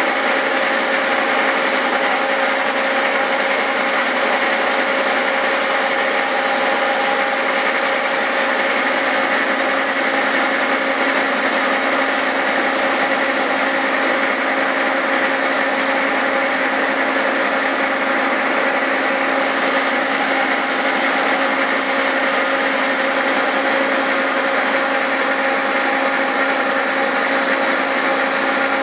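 Cincinnati horizontal milling machine running loud and steady, its form cutter cutting splines into a 4340 steel axle shaft: a constant machine hum with the steady sound of the cut.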